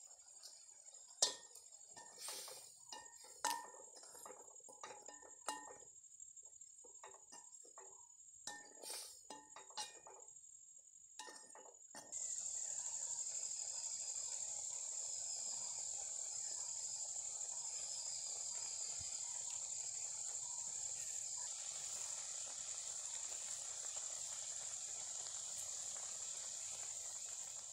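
A metal ladle clinks and knocks against the cooking pot several times over a steady high insect-like drone. About twelve seconds in, a louder steady hiss starts and continues.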